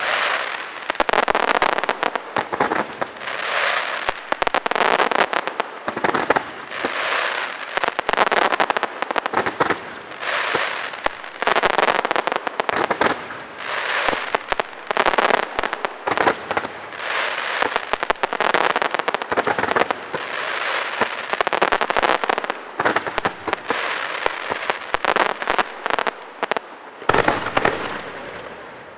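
Fireworks display: dense, rapid pops and bangs of bursting shells, coming in waves every second or two.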